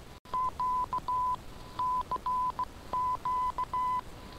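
Morse code sent as a steady tone of about 1 kHz, keyed in dash-and-dot groups that repeat about once a second, received over shortwave radio with a faint hiss beneath. It is a CQ DX call, the station's signal calling to distant listeners and radio amateurs.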